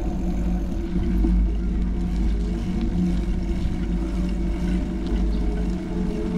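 A motor vehicle's engine running steadily: a constant low hum over a deep rumble.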